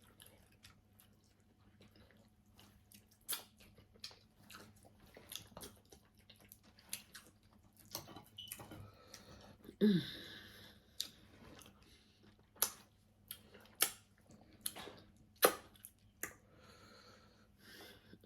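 Close-up eating sounds: chewing with wet mouth smacks and irregular sharp clicks, with a brief falling vocal sound about halfway through.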